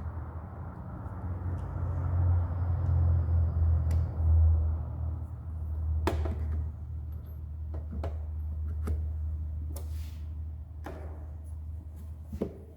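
Metal sockets clicking one by one onto a magnetic socket organizer, about eight sharp clicks spread over the second half, over a steady low hum that swells early on and then eases.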